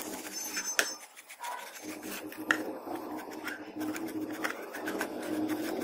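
Bench chisel paring a softwood gun blank by hand: short, repeated scraping cuts as shavings curl off the edge, with a few sharp clicks.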